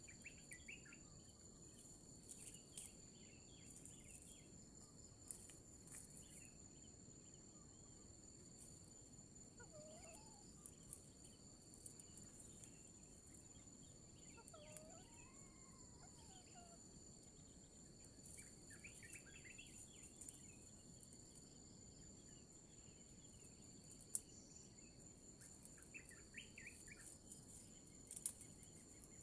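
Faint forest ambience: a steady high-pitched insect drone, with a few faint bird calls scattered through it, some short rising-and-falling whistles and some brief chattering clusters.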